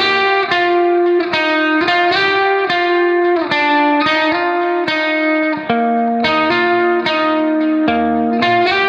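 Background music: a melody of plucked string notes, each starting sharply and fading, a little over two notes a second over a held lower note.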